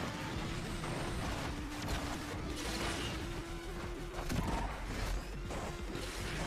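Horror sound-design ambience: a steady noisy drone with one held low tone, and a few faint scattered knocks.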